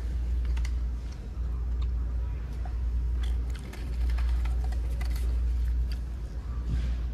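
Scattered light clicks and taps as cardboard French fry cartons are picked up and handled on a table, over a steady low hum.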